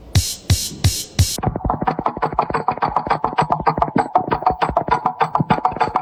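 Electronic background music with a steady drum-machine beat, heavy hits about three a second at first, then a quicker, busier rhythm from about a second and a half in.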